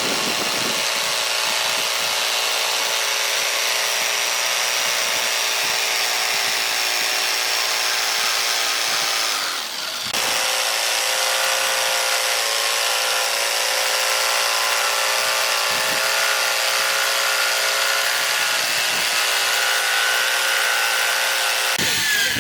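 An electric power tool running steadily at high speed with a whining tone, easing off briefly about ten seconds in and then running on.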